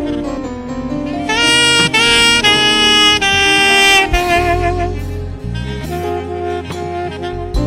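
Saxophone playing a melody over a band with bass, its held notes loudest from about a second and a half in to about four seconds in.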